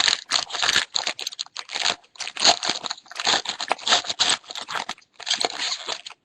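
A foil trading card pack wrapper being torn open and crinkled by hand: a rapid, irregular run of crackles and rustles with short pauses.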